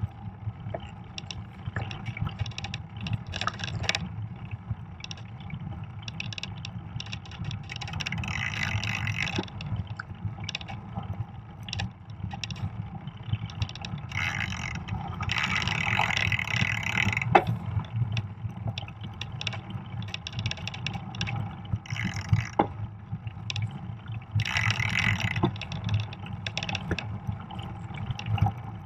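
Fat bike riding a snow-covered trail: a steady low rumble of tyres and wind, with scattered clicks and rattles from the bike. There are three louder hissing stretches, each a second or two long.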